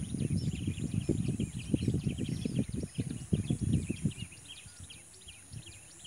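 Wind buffeting the microphone in gusts that die down about two-thirds of the way through, over a steady chorus of many small birds chirping.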